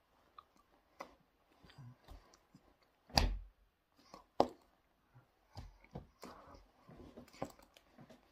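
Hands tapping and brushing against a jacket while signing: scattered soft clicks, taps and rustles, with a louder thump about three seconds in and another a second later.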